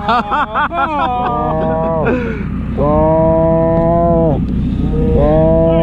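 Calf bawling: wavering, overlapping cries in the first second, then two long, held bawls, each about a second and a half.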